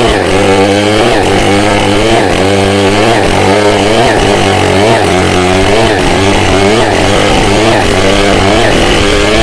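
Two-stroke chainsaw running under load while cutting through a coconut-wood log. The engine note stays loud and steady, its pitch dipping and rising again and again as the cut loads and frees the chain.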